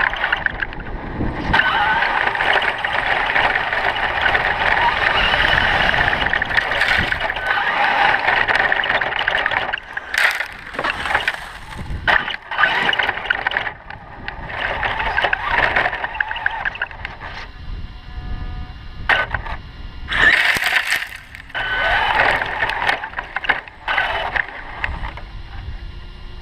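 Traxxas E-Maxx RC monster trucks running on LiPo-powered electric motors: a high whine from the motors and gears that rises and falls with the throttle. Several sharp knocks come in the second half, and the whine drops away at times.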